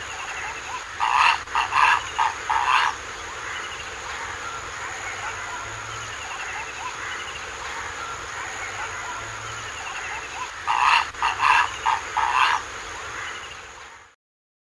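Purple heron giving harsh, croaking calls in two bursts of about five calls each, one a second or so in and another about eleven seconds in. The sound cuts off abruptly near the end.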